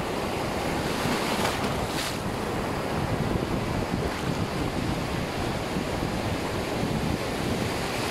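Small surf waves breaking and foaming water rushing around the microphone in the shallows, a steady wash of noise. Wind buffets the microphone underneath it.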